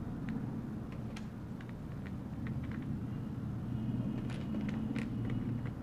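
Light, scattered clicks and taps of small wooden rangoli pieces being fitted into a wooden tray, over a steady low background rumble.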